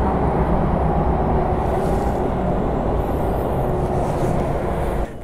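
Petrol nozzle filling a KTM 390 Adventure motorcycle's fuel tank: a steady rush of fuel with the dispenser pump's hum, cutting off abruptly near the end.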